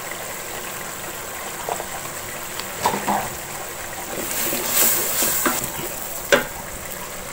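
Spices in oil and a little water sizzling in a metal pot, stirred with a wooden spatula that scrapes and knocks against the pot a few times. The sizzle swells for about a second in the middle.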